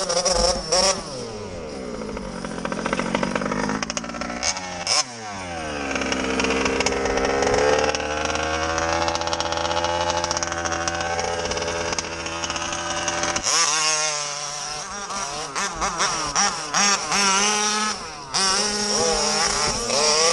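Small 48–50cc mini dirt bike engine being ridden, revving up and falling back repeatedly, with brief stutters and dips in the later seconds from a misfire.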